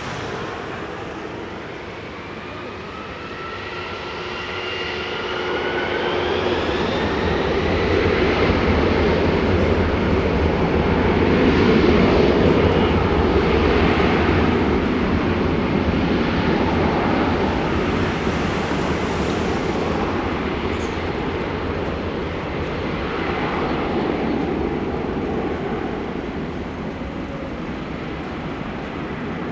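Four-engined Boeing 747-400 jet airliner on its takeoff run. The engines' whine rises in pitch over the first several seconds, then a broad roar builds to its loudest about twelve seconds in and slowly fades.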